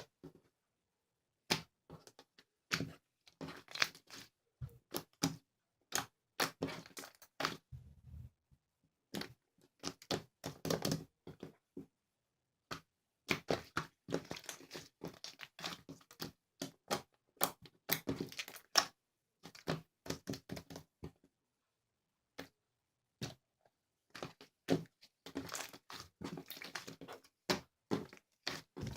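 Slime being squeezed and stretched by hand, giving irregular bursts of crackling, popping clicks with short silent pauses between.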